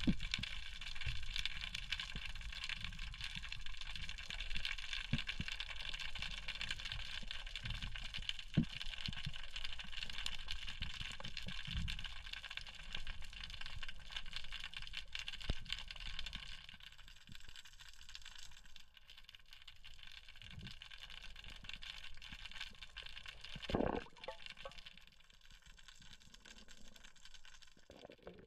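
Underwater ambience: a steady hum of several high tones that fades out about two-thirds of the way through, with scattered low knocks and clicks and one louder thump near the end.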